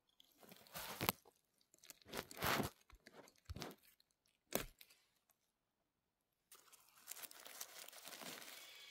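Dry forest-floor litter crunching and rustling: a few separate crunches, then a short gap of near silence, then steady rustling over the last couple of seconds.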